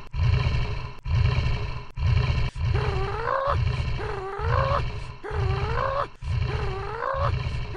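A short growl-like sound effect played over and over as a loop: a low rumble with a wavering, rising-and-falling cry on top, cut off sharply and restarting about once a second.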